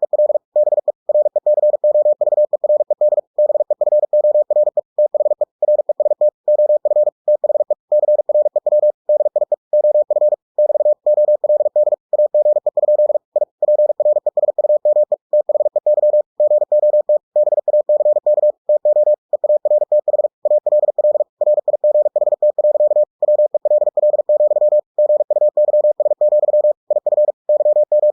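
Morse code (CW) sent at 45 words per minute: a single mid-pitched tone keyed rapidly on and off in dots and dashes, with short pauses between words. It is computer-generated, converted from text by ebook2cw.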